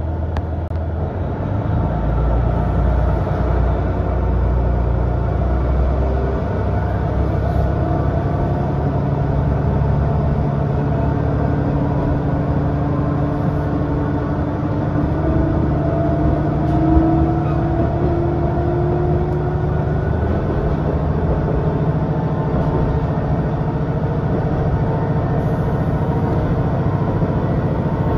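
JR East KiHa 110 series diesel railcar running, heard from inside the passenger cabin: a steady drone of the diesel engine and running gear. A note slowly rises through the middle stretch.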